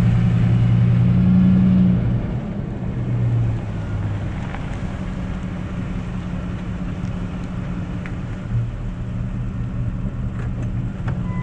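Ford F-150 pickup's engine pulling away and accelerating, loudest for the first two seconds, then easing into a steady cruise with tyre and road noise, heard from outside by the front fender.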